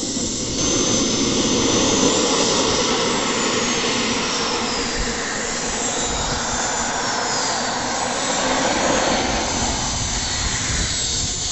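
Model jet turbine engine of a large-scale L-39 Albatros model running on the ground: a steady rushing roar with thin high whining tones that slide downward, growing louder about half a second in.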